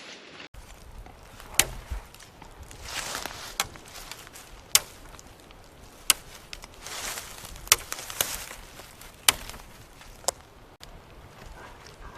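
Repeated sharp knocks, about eight strikes spaced a second or so apart, with rustling between them.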